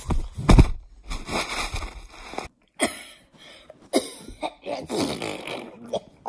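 A boy blowing raspberries and making strained, grimacing mouth noises close to a phone's microphone, in a run of short separate bursts, with the phone rubbing and knocking as it is handled in the first second.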